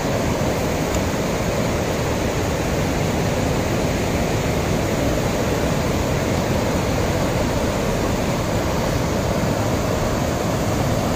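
A mountain river in flood, its fast, churning floodwater rushing in a steady, loud roar with no letup.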